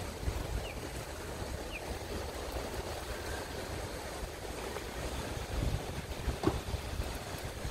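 Steady rush of river water below a dam, with wind rumbling on the microphone. Two faint, short high chirps sound within the first two seconds.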